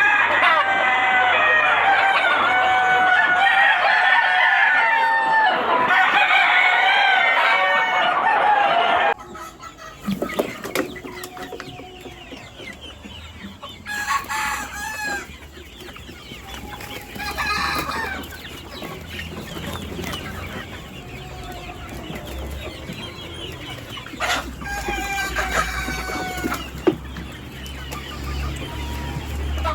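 A flock of desi chickens calling and clucking all at once, loud and dense for about the first nine seconds. It then cuts off suddenly to a quieter stretch with a few separate drawn-out chicken calls over a low steady hum.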